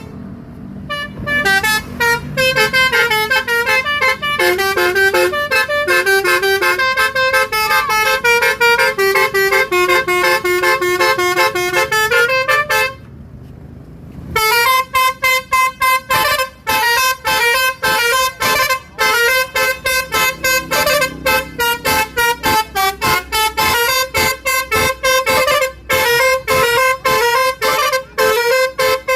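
Telolet horn, a multi-tone musical car horn, playing a tune in quick stepped notes. It breaks off about 13 seconds in, then comes back with fast, rapid-fire toots.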